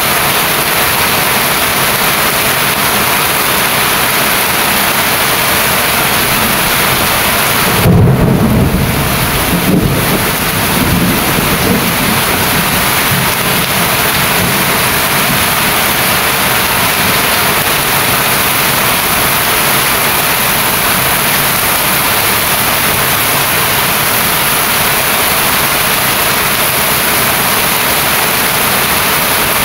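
Heavy rain falling steadily, with a roll of thunder about eight seconds in that rumbles low for a few seconds and fades.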